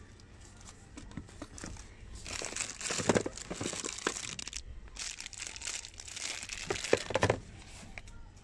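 Plastic wrapping crinkling as a hand handles and shifts packaged pouches on a shelf, in two stretches of a couple of seconds each.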